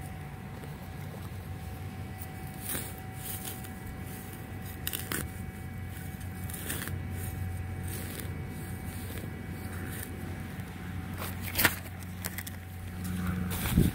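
Hands and a hand trowel rummaging through loose soil and grass around a freshly dug hole, with scattered crackles and scrapes and one louder click near the end, over a steady low rumble and a faint steady tone.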